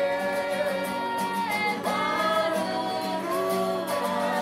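Women singing a song with a strummed acoustic guitar; the voices hold long notes over a steady strumming rhythm.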